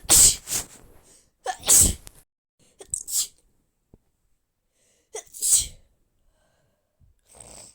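A person sneezing four times in quick succession, each sneeze led by a short voiced catch of breath, the third sneeze smaller than the others. A faint breath follows near the end. The sneezes come from someone who is unwell.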